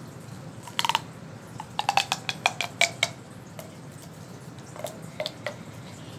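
Small hard pieces clicking and clacking as they are handled: a short cluster about a second in, a quick run of clicks around two to three seconds, then a few fainter ones near the end.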